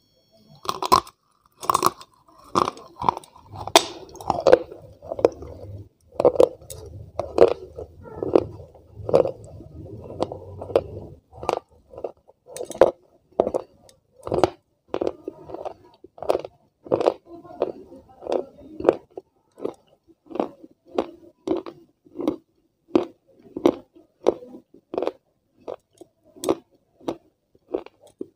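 Close-miked chewing of a hard, chalky white block. Two crisp bites come about a second in, then steady crunchy chews, roughly one and a half a second.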